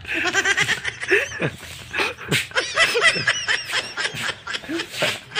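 A person laughing in quick, repeated bursts, with higher-pitched giggles around the middle.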